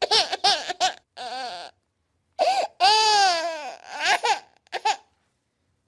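A baby vocalising: a run of short high-pitched cries, one longer falling wail about three seconds in, then a couple more short cries before it stops.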